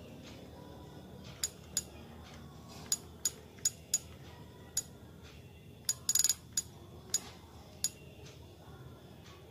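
Sony PSP menu navigation: about a dozen short, sharp ticks at irregular intervals as the buttons are pressed to scroll through the home menu, with a slightly longer chirp about six seconds in.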